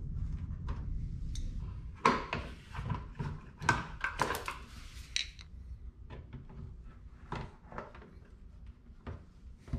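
Scattered knocks, clicks and rustling as a plastic rear spat panel and hand tools are handled and fitted against a car's rear fender, busiest about two to five seconds in.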